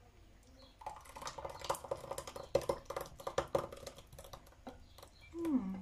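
Thick creamy sauce pouring from a tipped pot into a ceramic sauce jug, a rapid run of splats and clicks starting about a second in and easing off after about four seconds. Near the end comes a short falling hum.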